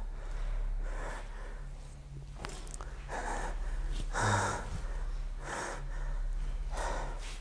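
A man breathing heavily and audibly, a loud breath in or out about every second.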